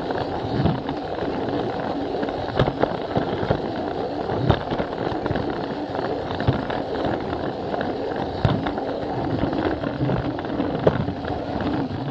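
Plarail toy train running on plastic track, heard from a camera riding on it: a steady rattle with frequent sharp clicks as the plastic wheels pass over the track joints.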